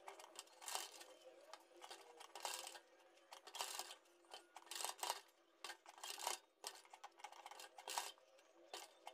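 Faint, irregular rustles and small clicks of fabric and twisted cord being handled and shifted under a sewing machine's presser foot.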